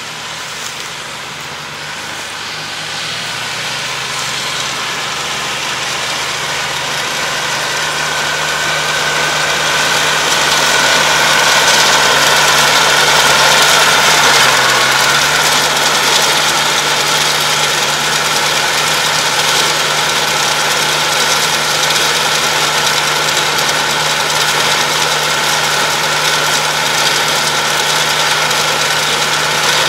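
Yanmar tractor's diesel engine running steadily while it pulls a round baler through rice straw, growing louder over the first ten seconds or so as it approaches and then holding level, with a steady high whine over the engine.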